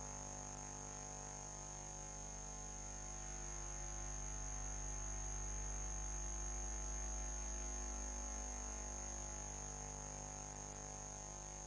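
Steady electrical hum with a thin high whine above it, unchanging throughout.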